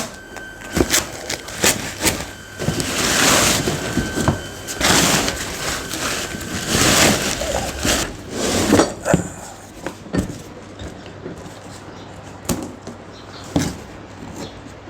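Large cardboard bicycle box being opened by hand: a run of long tearing and scraping swishes in the first half, then scattered knocks and clicks of cardboard and packing being handled.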